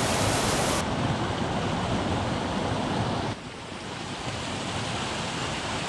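Rushing water of a small mountain stream, a steady hiss that changes abruptly twice: the highest part drops away about a second in, and it gets quieter a little after three seconds in.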